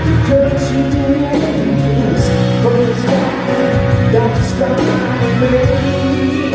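Rock band playing an instrumental passage of a slow power ballad: guitars over bass and drums, with a sustained melodic line on top.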